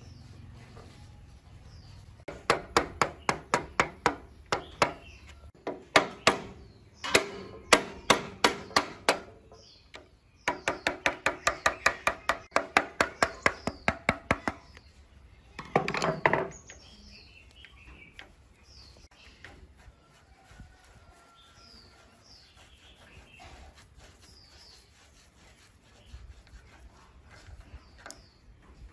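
Hammer blows on a steel drift set against a rusted slotted nut on an old Makino milling machine's spindle housing, knocking the nut loose. There are runs of sharp metallic strikes, at first about two or three a second, then a fast run of about five a second, then a last dense burst about halfway through. After that only faint tapping and bird chirps remain.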